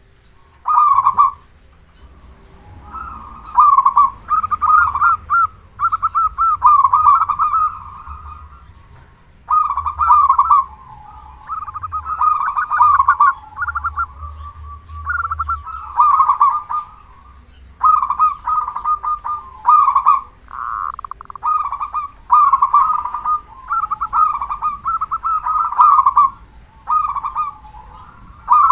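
Zebra dove (perkutut) cooing: repeated trilled coos in bursts of about one to two seconds, with short gaps between them.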